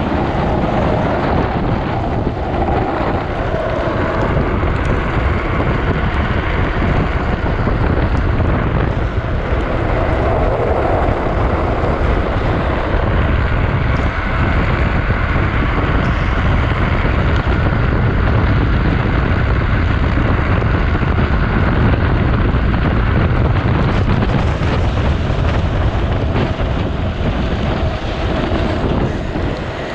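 Wind buffeting the microphone of an action camera on a drift trike during a fast downhill run, mixed with road noise from the trike's wheels on wet asphalt. The sound stays steady and loud without a break.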